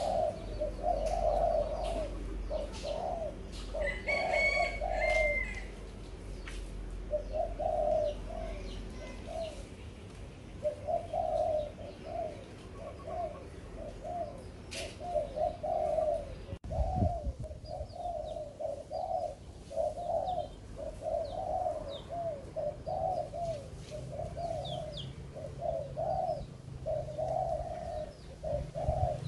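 Caged spotted doves cooing against each other in a cooing contest, their low repeated coos following one another almost without a break, with a short pause about six seconds in. Small birds chirp briefly about four seconds in.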